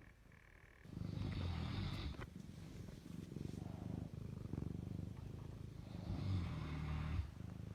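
Fila Brasileiro dog snoring in its sleep: a low, rattling snore on each breath, loudest about a second in and again around six seconds in.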